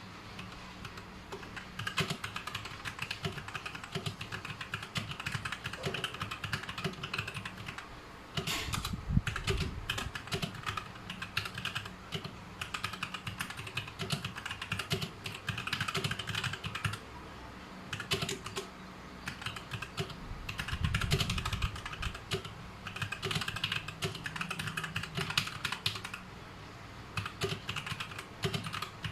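Typing on a Vortex Series VX6 mechanical keyboard with brown switches: rapid keystroke clicks in bursts with short pauses. Two heavier low thumps stand out, about nine and about twenty-one seconds in.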